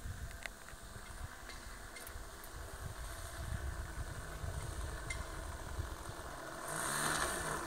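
Model airplane's alcohol-fuelled engine running on its landing approach. It grows steadily louder and swells near the end as the plane comes in close, with a low wind rumble on the microphone underneath.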